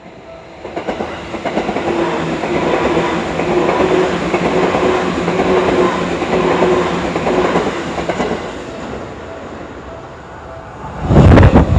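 Seibu electric commuter train running past close by: wheel-on-rail rumble and clatter with a steady motor hum, easing off about eight seconds in. About eleven seconds in, a second train rushes past right beside the microphone, much louder, with wind buffeting.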